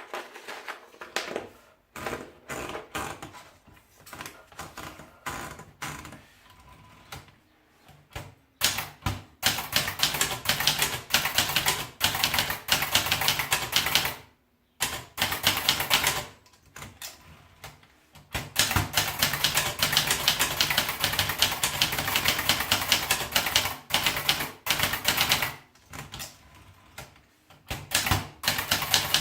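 Brother De Luxe typewriter being typed on. At first there are scattered, quieter key clicks. From about eight seconds in come fast runs of keystrokes, broken by short pauses.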